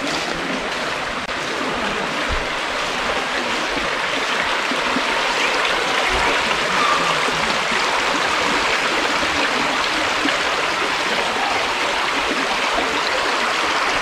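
Shallow woodland stream running steadily over stones, growing a little louder over the first few seconds.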